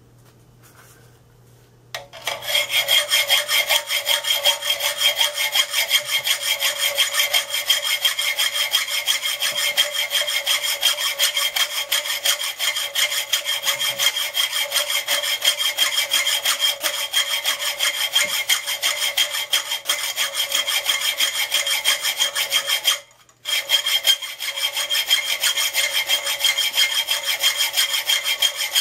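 A 12-inch file in a file jig working across a steel knife blank to cut the bevel: continuous metallic rasping with a steady ringing tone. It starts about two seconds in and stops briefly once near the end.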